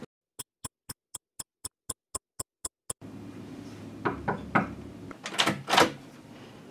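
A dozen sharp, even ticks, about four a second, against dead silence: a ticking sound effect. Then three knocks on a wooden office door, and a second later a louder clatter as the door is unlatched and opened.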